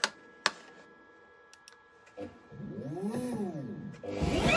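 Two sharp clicks, then a High-Z CNC router's axis motors humming as the gantry moves, the pitch rising and then falling as it speeds up and slows down. Near the end the spindle starts up: a loud rushing noise with a whine that climbs to a steady high pitch.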